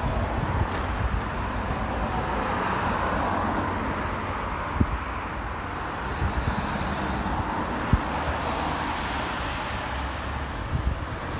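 Road traffic: cars driving past and around a roundabout, a steady hiss of tyres and engines that slowly swells and fades. There are a couple of brief clicks, about 5 and 8 seconds in.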